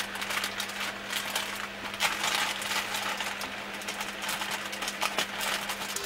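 Plastic mailing bag crinkling and rustling as it is handled and cut open with scissors, full of crackles and sharp ticks.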